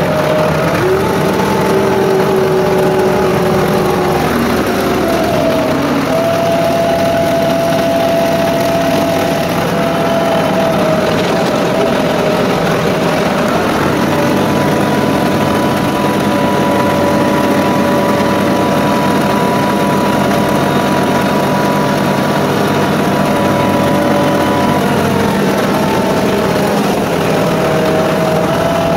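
Ford 5610S tractor's diesel engine running steadily under load while it pulls a box blade over gravel; the engine note shifts in pitch a few times as the speed changes.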